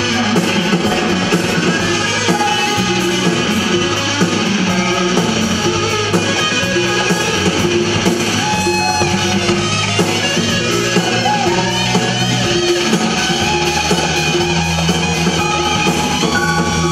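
Live soul band playing an instrumental passage: electric guitar over bass and drums, recorded from the audience.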